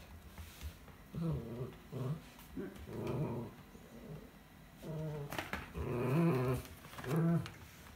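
Miniature schnauzer play-growling in a series of short bouts while it grips and shakes an empty cardboard box, with one sharp click about five and a half seconds in.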